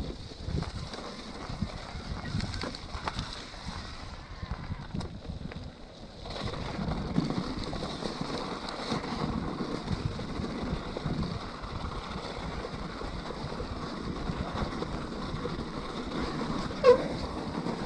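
Electric mountain bike ridden over a wet, muddy trail and then onto snow: plus-size tyres rolling and the bike rattling, with wind on the microphone. The rolling noise gets fuller about six seconds in, and a short high squeak is heard near the end.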